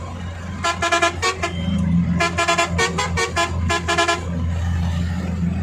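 Air horn fitted to a Mahindra Maxi Cab sounding a quick pattern of many short toots in several clusters, the pitch shifting slightly between them, over the van's engine idling.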